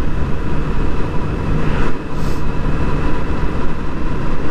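Sport motorcycle cruising at a steady speed: an even engine drone under a constant rush of wind and road noise.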